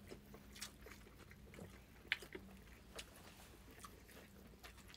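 Faint, close chewing and mouth sounds of someone eating, with a few soft clicks; the sharpest click comes about two seconds in.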